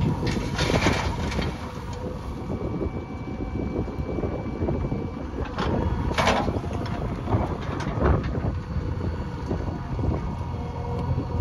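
JCB backhoe loader's diesel engine running under work, with a rattle of small knocks and two louder metallic clanks, about a second in and about six seconds in.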